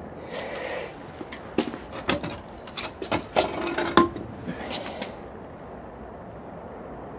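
Rusty iron machine-gun mount being handled and turned over on stone paving: a short rustle, then a run of knocks and clanks of iron from about one to four seconds in, the loudest near the end of the run, and another rustle about five seconds in.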